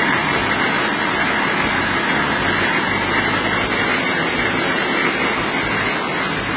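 Chevy 3500 pickup idling steadily, an even rumble and hiss that holds unchanged throughout.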